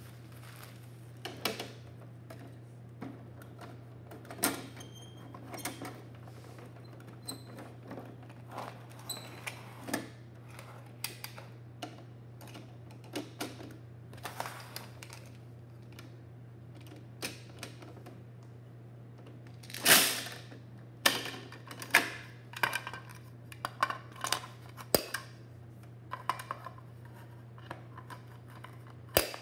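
Hard plastic clicks, clacks and knocks of a Bruder toy rear-loader garbage truck and toy wheelie bins being handled, over a steady low hum. The taps are scattered at first and become a busier, louder clatter from about twenty seconds in.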